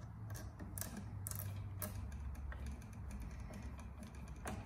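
Small irregular clicks and ticks of stiff electrical wire and a plastic wire nut being handled as wires are twisted together and capped.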